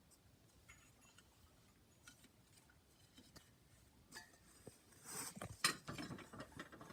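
Faint handling of ceiling fan light kit parts: scattered small clicks and clinks, with a busier patch of handling and clatter about five seconds in.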